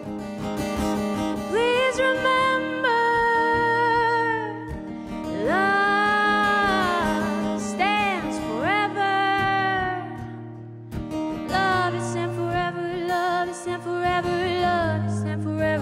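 Live folk song: a woman singing long, sliding melody lines over acoustic guitar and mandolin.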